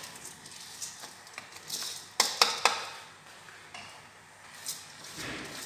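Soaked rice tipped from a metal colander into a stainless steel stockpot, the colander clinking and knocking against the pot. The loudest knocks come in a quick cluster a little over two seconds in.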